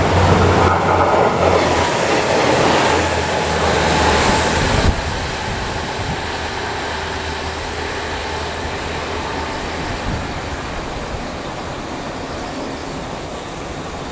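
Trains running on the tracks: a loud rumble of wheels on rail with a steady low hum, a brief high-pitched wheel squeal about four and a half seconds in, then the noise drops suddenly to a quieter, steady running sound.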